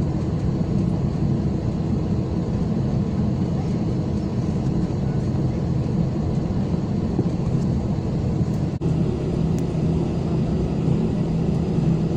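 Steady jet engine and cabin noise heard inside an airliner as it taxis, with a strong low hum. There is a brief click and dropout about nine seconds in.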